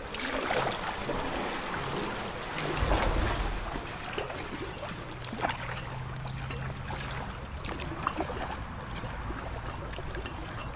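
Kayak paddle strokes in calm canal water, with occasional small splashes and drips, and wind on the microphone. A louder low rumble comes about three seconds in.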